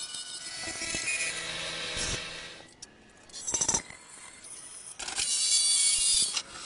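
Wood lathe cutting: a hand-held turning tool, and later a bit in the tailstock, scraping into spinning hardwood, heard as a steady hissing scrape. It comes in several short stretches with abrupt cuts between them, and it is loudest near the end.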